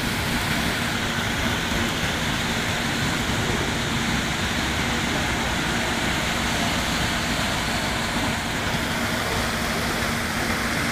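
Heavy rain pouring down, a steady, even rush of rainfall and running water, with a faint steady low hum beneath it.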